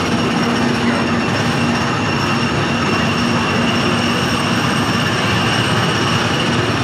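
Steady, loud drone of the small gasoline engines on the Tomorrowland Speedway ride cars running around the track, with a faint steady whine over the din.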